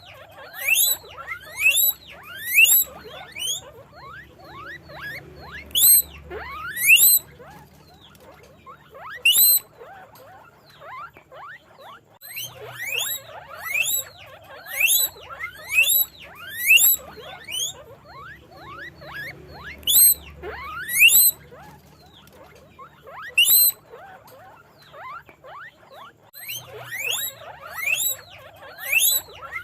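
Guinea pigs squeaking: a rapid string of short, high-pitched calls that rise and fall in pitch, coming in bursts with brief lulls between them.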